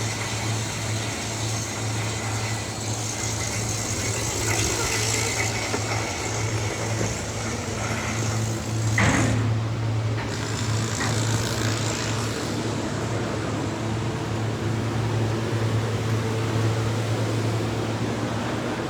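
A steady low mechanical hum over a noisy background, with a single sharp knock about nine seconds in.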